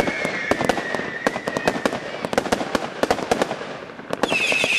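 Bonfireworks Earcatcher firework firing: a rapid, irregular string of sharp pops and crackles. High whistling fades out early and comes back loudly near the end.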